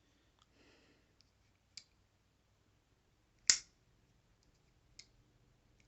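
Sharp clicks of a Boker Kalashnikov Cleaver automatic knife being worked in the hand: a loud snap about halfway through and another at the very end, with fainter clicks in between.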